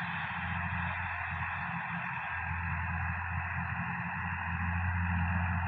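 Sonalika tractor's diesel engine running steadily under load while it drives a rotary tiller through the soil: a constant low drone with a steady noisy layer above it.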